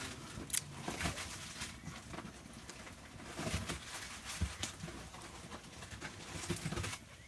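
Small open wood fire crackling with irregular clicks and pops, with a few faint low animal calls now and then.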